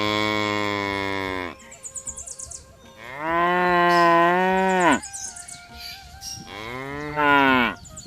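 Bovine mooing: three long, loud low calls, the second dropping in pitch at its end and the third shorter and falling.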